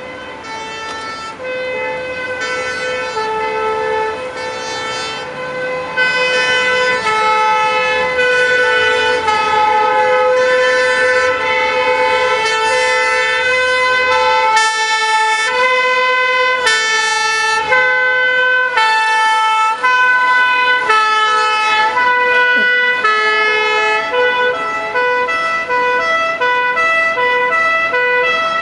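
Several fire engines' two-tone sirens sounding together, each alternating between a high and a low note about once a second, with the sets overlapping out of step. Truck engines run beneath as the vehicles drive past.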